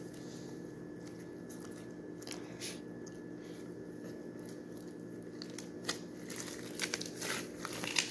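Pink slime packed with foam beads being stretched and squeezed by hand, giving crunchy crackling clicks that come thick and fast in the last two seconds. A steady low hum runs underneath.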